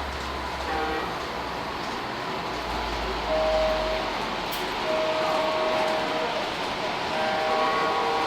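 Train sounds from a miniature train layout: a steady rumble with short, held horn-like tones, the clearest about three seconds in and again about five seconds in.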